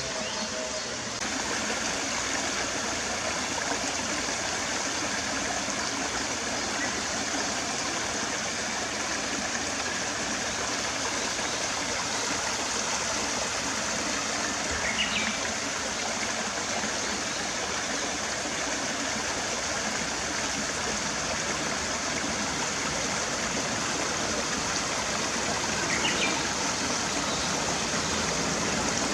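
Steady rush of running water from a small stream, with two brief high chirps, about halfway through and near the end.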